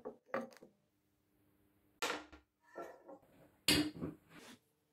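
Copper pipe clanking against a steel anvil as it is handled and laid in place: several irregular sharp metal knocks, some ringing briefly, the loudest near the end.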